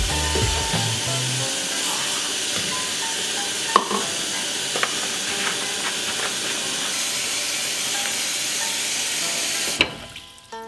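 Kitchen faucet running full into a stainless steel sink as it fills, a steady rushing hiss, with a single sharp knock about four seconds in. Near the end the tap is shut off and the flow stops abruptly.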